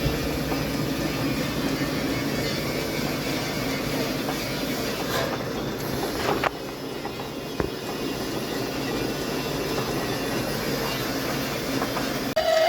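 Metal lathe running steadily, turning a lock groove for a bearing, with a few light clicks and a slight drop in level about six and a half seconds in.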